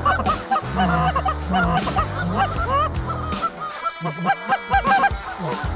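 Canada goose call blown by a hunter in fast, repeated honks and clucks to work an incoming flock, over low steady background notes.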